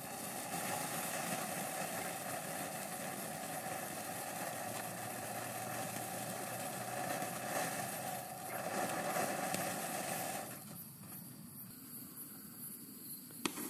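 Ground fountain firework burning: a steady, rushing hiss of spraying sparks that cuts off about ten and a half seconds in as the fountain burns out. One sharp click near the end.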